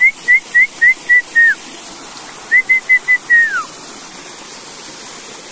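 A person whistling to call a dog: a quick run of short, high whistle notes, about five a second, the last one sliding down, then after a short pause a second run of four notes ending in a long falling slide.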